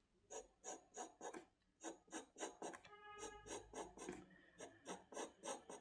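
Pencil lead scratching on paper in quick short strokes, about three or four a second, with a brief squeak about halfway through.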